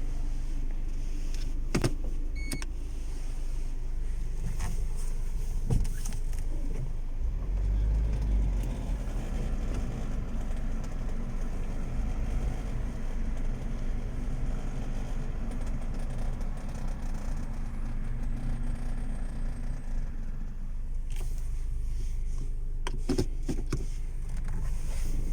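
Honda Civic sedan body squeaking: a few brief squeaks and clicks over a steady low road-and-engine rumble, the squeak the owner is tracking down.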